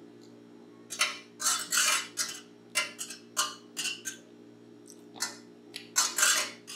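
Wire whisk beating a milk mixture in an enamel pot, in short, uneven strokes about two a second with brief pauses between them.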